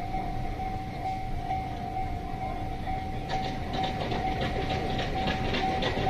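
Japanese level-crossing warning bell ringing steadily at about two chimes a second. From about halfway through, a Series 281 limited express train passes, its wheels clattering rapidly over the rail joints.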